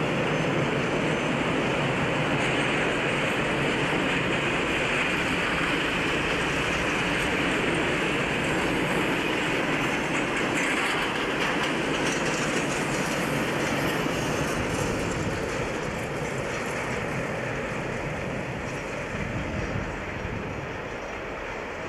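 Freight train of car-transporter and container wagons rolling past, a steady noise of wheels on the rails that fades over the last several seconds.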